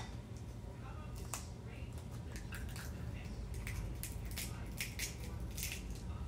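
Egg being separated by hand: light clicks and ticks of the cracked eggshell halves against each other and the rim of a small bowl as the yolk is passed back and forth, with soft wet sounds of the white dripping into the bowl.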